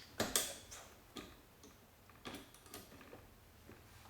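Scattered sharp clicks and taps of a hand tool on the metal parts of a screw-drive garage door opener's carriage. The loudest clicks come just after the start, then fainter ones follow every half second or so.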